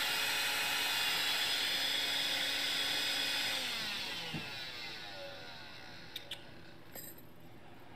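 Vacuum cleaner running with a steady whine, then switched off about three and a half seconds in, its motor winding down with a falling whine until it fades out.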